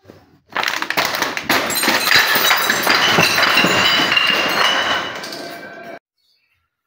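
Glass bottles filled with water beads smashing on stone stairs: a long, dense run of shattering glass, clinking shards and scattering beads that tails off and cuts off suddenly about six seconds in.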